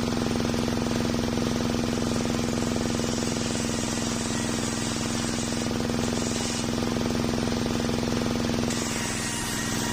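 Homemade engine-driven circular sawmill running steadily with a constant engine drone, its big blade ripping through a log of waru wood into boards with a hiss that rises for a few seconds in the middle and again near the end.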